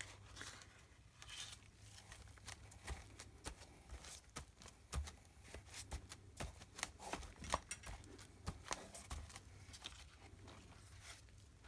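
Faint, irregular crinkling and small clicks of crumpled deli paper being pressed and smoothed flat by gloved hands.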